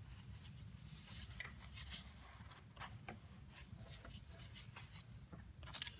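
Faint, scattered rustles and light clicks of hands working the rubber fuel line and its clamp onto the carburetor's fuel inlet, over a low steady hum.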